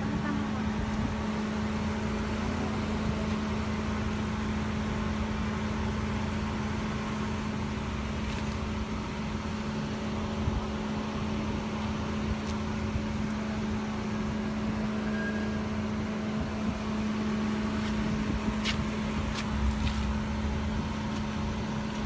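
Car engine idling close by: a steady hum with one constant low tone, and a few faint clicks late on.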